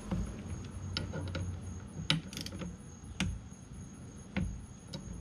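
Socket wrench working the rear tie bar's mounting bolts: a handful of sharp metallic clicks, irregularly spaced, about a second apart.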